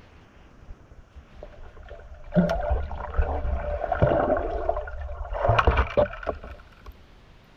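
Muffled underwater water movement with knocks, heard through a diver's underwater camera. It comes in two bursts: a longer one from about two seconds in, and a shorter one about five and a half seconds in.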